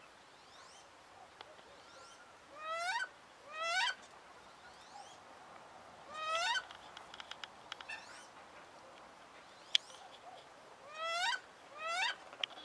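Wood duck giving five loud rising squealing calls, two close together, then one, then two more near the end, with fainter high rising whistles between them. This is the squeal of a female wood duck agitated after being moved to a new pond. A single sharp click sounds a little before the last pair.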